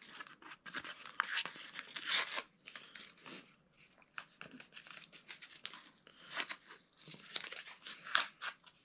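Small paper packets from an MRE accessory pack being torn open and crinkled by hand, in irregular short rips and rustles, with the loudest tears about two seconds in and near the end.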